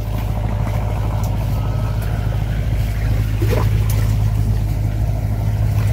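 A small engine running steadily with an even, unchanging low drone.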